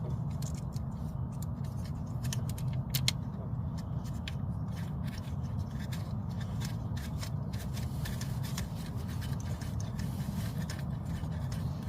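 Irregular small clicks and light scraping of a ratchet and 19 mm deep socket snugging a new backup light switch into the aluminum transmission case, over a steady low hum.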